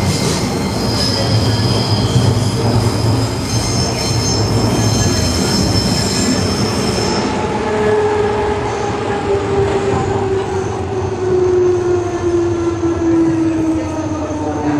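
Berlin S-Bahn class 485 electric train running, heard from inside the passenger car: a steady running rumble with high squealing tones from the wheels for the first half. About halfway through, an electric whine sets in and falls slowly in pitch, as it does when the train slows down.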